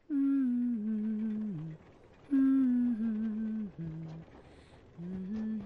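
A single voice humming a slow tune without words. A short phrase of held notes steps downward and is heard twice, then a longer held note begins near the end.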